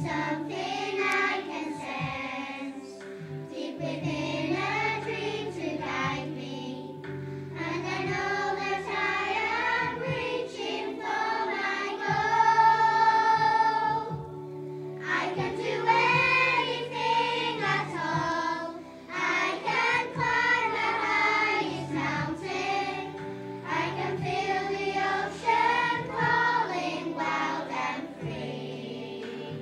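Primary school children's choir singing a song in phrases over steady held low notes, with a long held high note about halfway through as the loudest moment.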